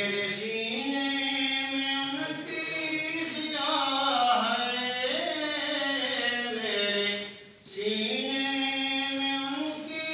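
A man singing an Urdu naat solo and unaccompanied, holding long notes that glide up and down, with a short break for breath about seven and a half seconds in.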